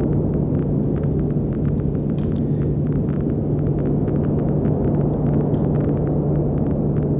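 Filtered triangle-wave synthesizer drone from Ableton's Operator: a steady low tone over a dense rumbling wash, with faint crackles scattered through it.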